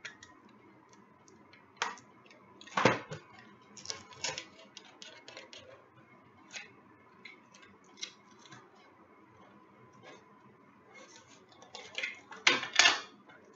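Cellophane shrink-wrap on a cardboard box being cut with a box cutter and handled: scattered crinkles, scrapes and small clicks, with louder bursts about three seconds in and near the end.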